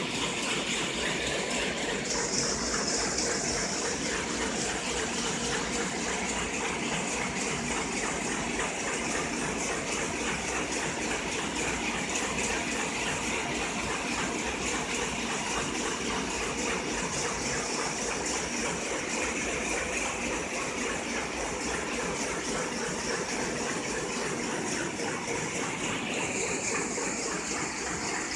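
Multi-unit sheet-fed offset printing press running: a steady, unbroken rushing machine noise.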